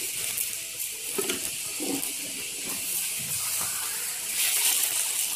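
Egg frying in hot oil in a steel ladle, a steady sizzle that gets louder about four and a half seconds in.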